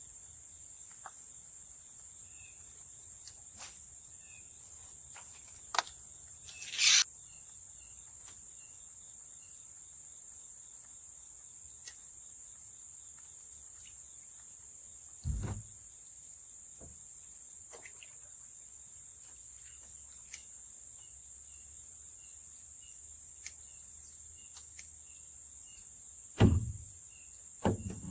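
Steady high-pitched insect chorus with a faint repeated chirping, broken by a few brief knocks and clicks.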